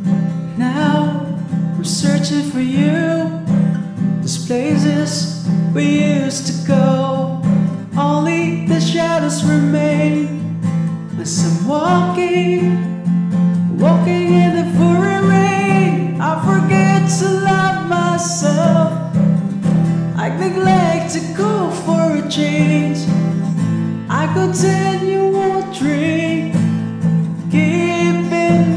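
A male voice sings a slow pop ballad melody over acoustic guitar.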